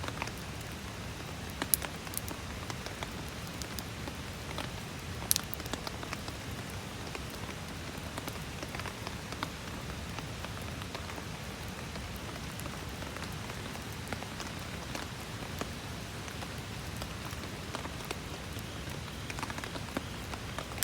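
Campfire burning in steady rain: an even hiss of rainfall with frequent small sharp pops and crackles, two of them louder, about two and five seconds in.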